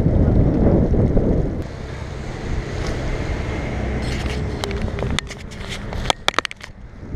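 Wind buffeting the microphone, heaviest for the first second and a half, over a steady rush of stream water. A run of sharp clicks and knocks follows from about four seconds in.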